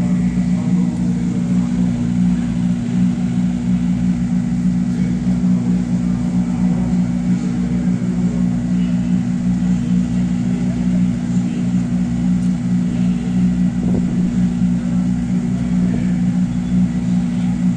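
A steady low engine hum, unchanging in pitch and level throughout.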